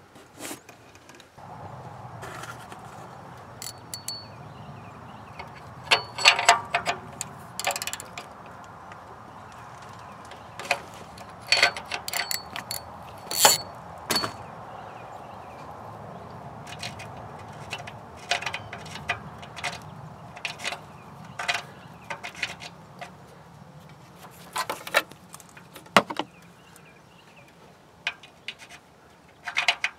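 Metal clinking and clatter from hands working on an exhaust oxygen sensor in a flat-six's exhaust manifold. Sharp, irregular clinks come in clusters, some with a brief metallic ring, over a faint steady hum.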